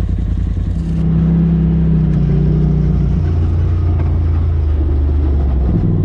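Polaris RZR side-by-side's engine running steadily at low revs, heard from inside the cab, its pitch stepping slightly about three seconds in.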